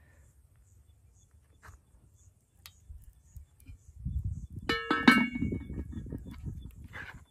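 A serving spoon knocking against dishware as food is dished out: two sharp, ringing clinks less than half a second apart, over low scraping and handling noise.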